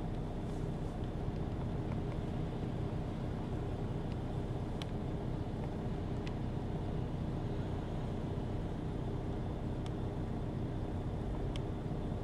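Steady low rumble of a car's running engine heard from inside the cabin, the car standing or creeping in city traffic, with a few faint, scattered ticks.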